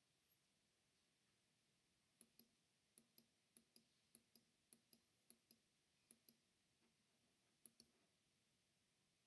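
Eight quick double clicks, each a press followed by its release about a fifth of a second later, spaced roughly half a second to a second apart. They are the clicks of advancing a presentation slide by slide and bullet by bullet, against near silence.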